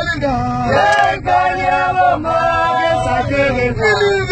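A man singing unaccompanied, with held notes and sliding pitches, over the low steady rumble of the moving vehicle he is riding in.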